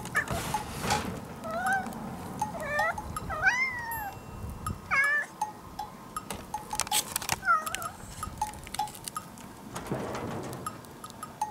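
Cat meowing in a string of short calls that bend up and down in pitch, several in the first half and a last one about eight seconds in, with a few sharp knocks between them.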